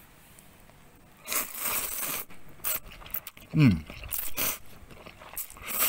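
Cold soba noodles being slurped in several loud, noisy slurps, with a short falling hum between them.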